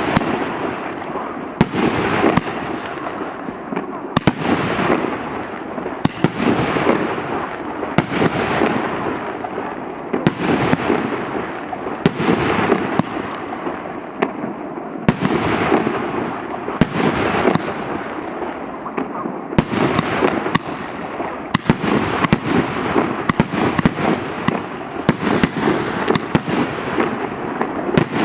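A 1.5-inch, 88-shot consumer fireworks cake firing its shots in a continuous barrage: sharp bangs every second or two, each followed by a hiss that fades away.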